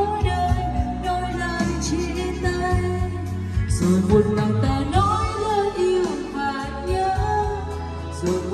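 A woman singing a Vietnamese song live into a handheld microphone over a karaoke backing track, played through loudspeakers with echo and reverb from a Dynacord mixer. About halfway through she holds a long note with vibrato.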